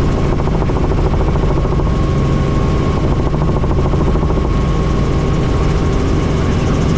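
Helicopter in flight: loud, steady engine and rotor noise with a constant high whine running through it.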